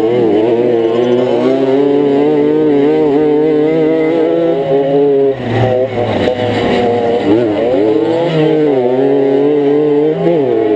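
Kreidler Flory 50 cc two-stroke moped engine running hard at high revs in a race, its pitch dipping briefly and climbing back several times as the throttle eases and opens again. About five to seven seconds in the sound turns rougher and noisier before the steady high note returns.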